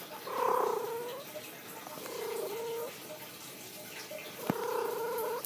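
Domestic cat making three short, fluttering trill-like calls with a purring quality, answering between the owner's meows. A single sharp click comes shortly before the last call.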